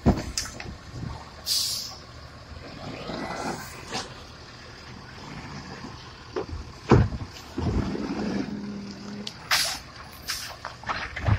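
Automated side-loading garbage truck emptying wheeled plastic trash carts, over its running diesel engine. The lifting arm grips, tips and sets the carts down with several knocks and bangs, the loudest about 7 s in. A steady hydraulic hum follows, then short hisses of air near the end.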